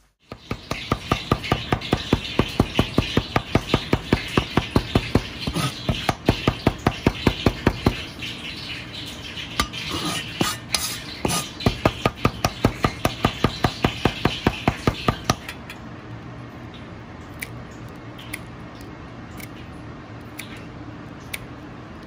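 Chinese cleaver mincing garlic on a cutting board: rapid, even chops, several a second, that stop about fifteen seconds in, after which only a few light clicks are left.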